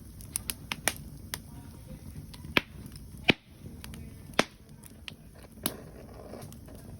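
Wood campfire crackling, with sharp irregular pops, the loudest three in the middle, over a steady low noise.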